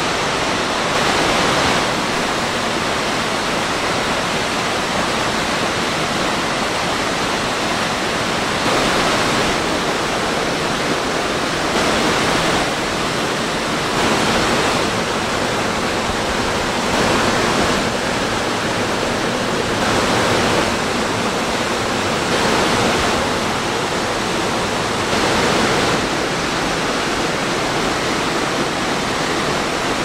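Mountain waterfall and rocky stream in heavy flow, falling water rushing loudly and steadily, swelling slightly every few seconds.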